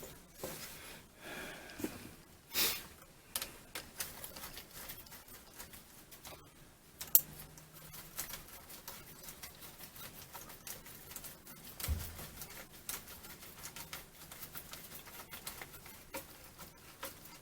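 Faint, irregular small clicks and scrapes of metal as a hose clamp is tightened by hand. There is a sharper click about seven seconds in and a low thump near twelve seconds.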